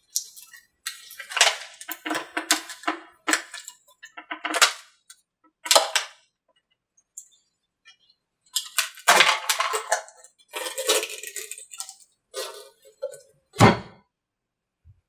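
Composite male mold being prised out of its female mold: repeated sharp cracks and crackling in short clusters as the cured surface coat lets go of the mold, the sound of a clean release. A louder, deeper knock comes near the end as the part comes free.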